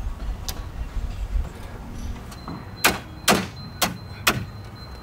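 Sharp knocks from tool work on the camper: a lighter one about half a second in, then four loud ones about half a second apart in the second half.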